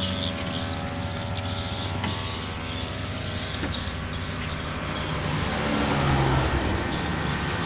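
An engine running steadily, with its pitch rising after about five and a half seconds. A high chirping sits over it in the first two seconds.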